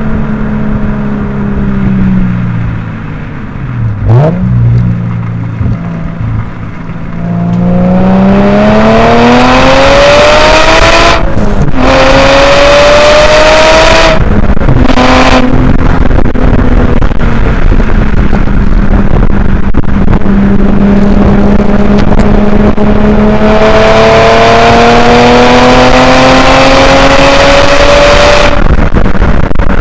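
Subaru Legacy 3.0R Spec.B's EZ30R flat-six with its muffler deleted, revs dropping briefly, then climbing hard under acceleration, cutting out twice for a moment, holding steady, climbing again and falling off near the end. Heavy wind rush over the outside-mounted microphone runs underneath.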